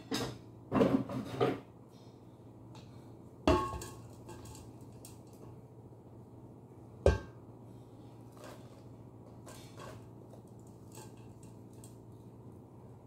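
Metal inner pot clattering against a stainless-steel bowl and its appliance: a burst of clatter in the first second and a half, then two sharp clanks, about three and a half and seven seconds in, while dried kitchen scraps are tipped out, followed by light rattles. A steady low hum sits underneath.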